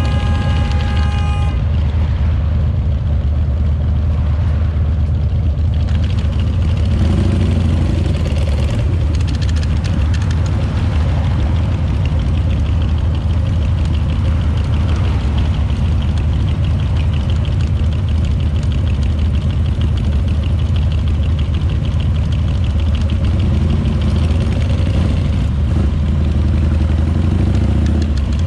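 Harley-Davidson V-twin motorcycle engine running steadily.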